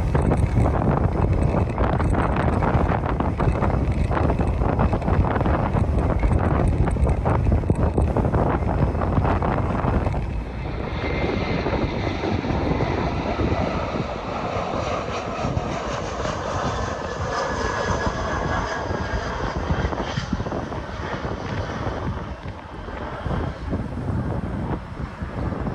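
Jet airliner coming in to land, heard as a heavy low rumble with gusts of wind on the microphone. About ten seconds in it changes to a rushing engine noise with a thin, steady whine that slowly fades.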